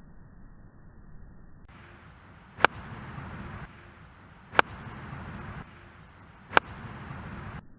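Three golf shots, a club striking the ball with a sharp crack each time, about two seconds apart.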